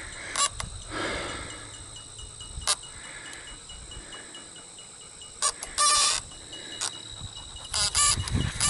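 Dogs whining, with a few loud rattling knocks about five and a half seconds in and again near the end.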